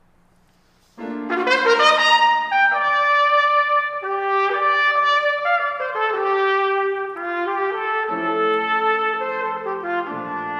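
Solo trumpet, unaccompanied, coming in about a second in. It plays a quick series of notes, then a slower melody of held notes.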